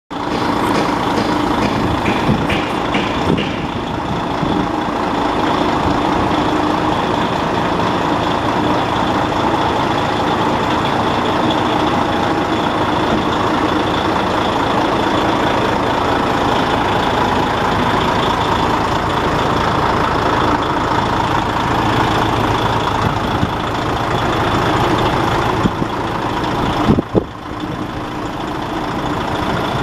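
DAF XF105.510 tractor unit's 12.9-litre PACCAR MX straight-six diesel idling steadily, heard close up. A couple of brief knocks near the end.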